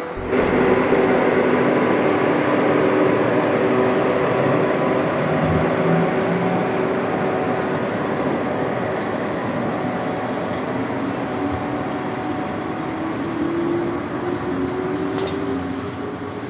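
Double-headed EL2 electric mining locomotives hauling a loaded coal train: a steady hum over rumbling wheel and rail noise that slowly fades as the train moves away, with a tone rising in pitch about 13 seconds in.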